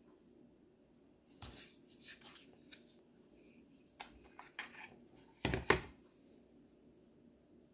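Fixed-blade knife handled in its molded plastic sheath: scattered clicks and rubbing of plastic, then a loud double snap about five and a half seconds in as the knife is drawn free of the sheath's retention.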